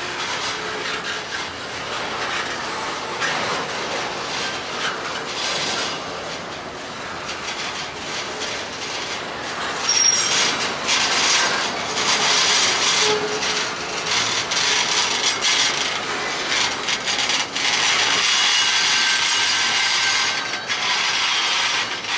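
Double-stack intermodal freight cars rolling past, their steel wheels running on the rails with a continuous grinding, rubbing noise that grows louder about ten seconds in and again near the end.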